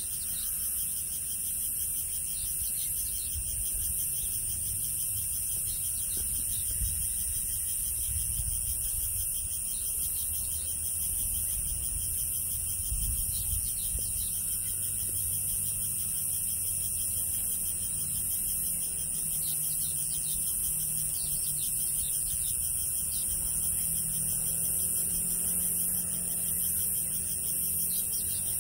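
Steady high-pitched chorus of singing insects that pulses faintly about once a second, over a low rumble.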